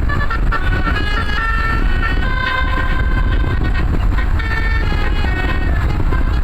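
Bus 'telolet basuri' multi-trumpet air horn on the roof, playing a quick melody of stepping and held notes over the low rumble of the bus's engine.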